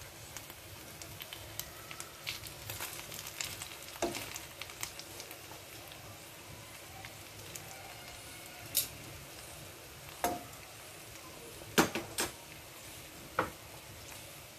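Chicken pieces sizzling and frying in oil in a granite-coated grill pan, a steady hiss with small crackles. A few sharp clicks ring out in the second half, louder than the sizzle.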